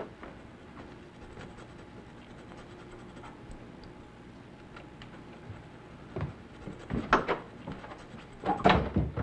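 Low room noise with faint scratching, then a few sharp knocks and thuds in the last three seconds as the front door is pushed shut.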